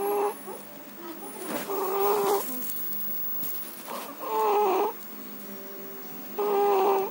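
A sleeping animal snoring: four pitched snores about two seconds apart, each under a second long.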